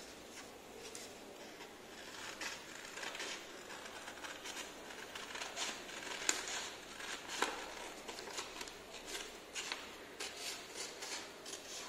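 A small pair of hand scissors cutting coloured paper: many short, irregular snips, a few sharper ones around the middle.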